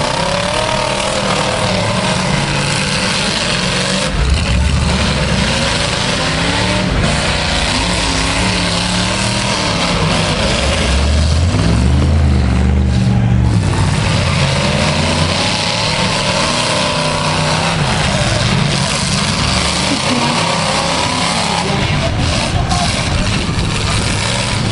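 Demolition derby cars' engines running and revving, their pitch rising and falling, in a loud continuous din.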